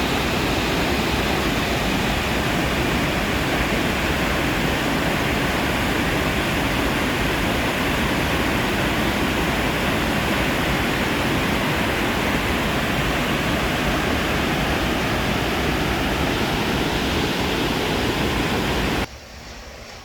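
Steady, loud rush of a fast-flowing stream swollen by heavy rain. It cuts off suddenly about a second before the end, leaving a much quieter background.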